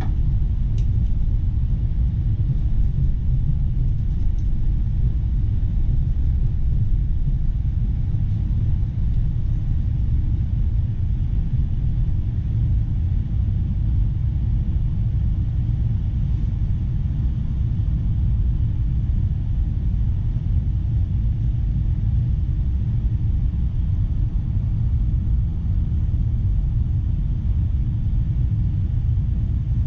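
ES2G (Siemens Desiro RUS) electric multiple unit running, a steady low rumble of wheels and running gear heard inside the passenger car.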